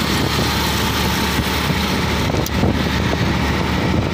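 Steady road and engine noise from a vehicle driving along a city road.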